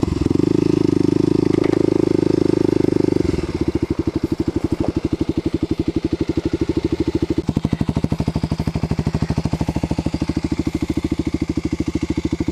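Kawasaki KLX250SF's single-cylinder four-stroke engine with a Muzzy exhaust, running steadily while riding, then dropping to idle about three and a half seconds in as the bike slows to a stop. At idle it keeps up a rapid, even beat of exhaust pulses.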